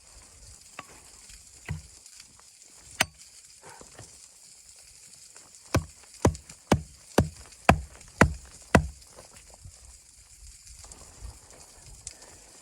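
Wood being chopped: a few single blows, then a quick run of seven blows about two a second.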